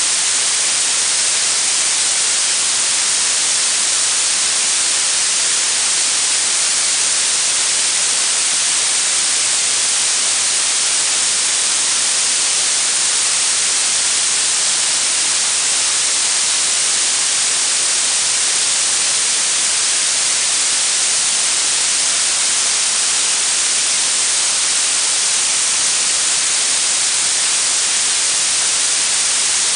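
Steady synthetic blue noise: an even hiss weighted toward the high frequencies, with no change in level or character.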